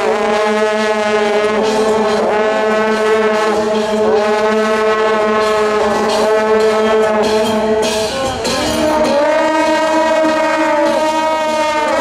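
Several long horns blown together in held blasts, a few pitches sounding at once like a chord. The blasts restart about every two seconds, and about eight seconds in they shift to a new, lower-sounding chord.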